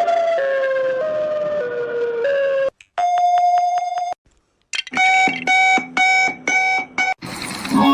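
Synthesized emergency-alert-style alarm tones. A stepping electronic melody is followed by a steady buzzing tone about a second long, then high and low beeps alternating about twice a second. A new loud tone sequence starts near the end.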